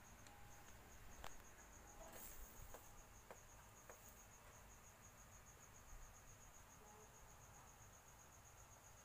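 Faint, steady high-pitched insect chirping, evenly pulsed at about seven pulses a second, with a few soft clicks in the first four seconds.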